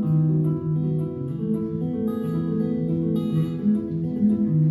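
Live band playing an instrumental passage between sung verses: acoustic guitar strummed over held chords and a bass line, with no singing.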